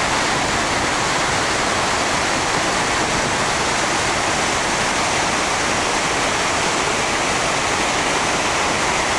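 Loud, steady rush of the Iguazú River's water pouring over the falls.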